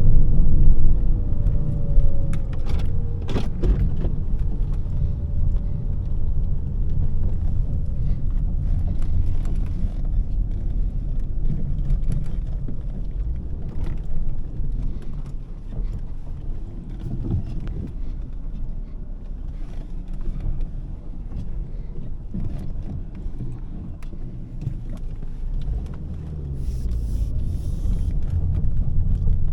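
Volvo S40 2.4i's five-cylinder petrol engine and tyre-and-road noise while driving in town, a steady low rumble. A faint whine rises and falls in the first few seconds, and a sharp click comes about three seconds in.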